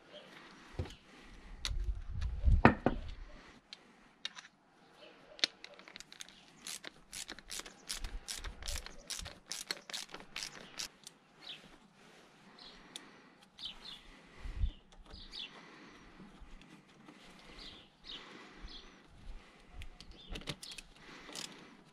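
Metal parts of a BMW starter motor being handled and fitted by hand: scattered clicks and knocks, a heavier thump about two and a half seconds in, and a run of quick clicks in the middle. Birds chirp faintly in the later part.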